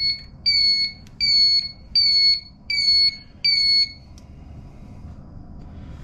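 Motorcycle turn-signal flasher beeping in time with the flashing LED turn signals. Each beep is a short, high, steady tone repeating about every three-quarters of a second, and the beeping stops about four seconds in.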